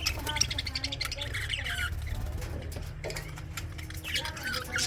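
Budgerigars chattering: a busy run of quick warbled chirps and squawks, over a steady low hum.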